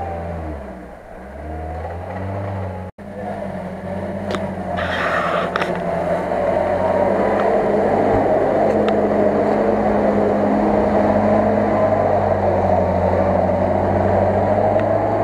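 Off-road 4x4 engine revving as the jeep pushes through deep mud, rising and falling in pitch at first, then louder and steadier as it comes closer. The sound cuts out for an instant about three seconds in, and there is a brief hiss about five seconds in.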